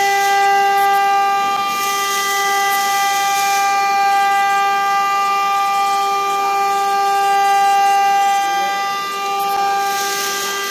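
Steady high-pitched whine from running machinery: one unchanging tone with overtones. A hiss swells twice in the first few seconds and again near the end.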